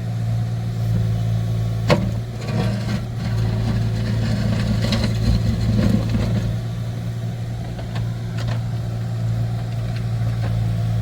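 Tractor engine running steadily, with a single sharp knock about two seconds in and some rougher mechanical noise for a few seconds after it.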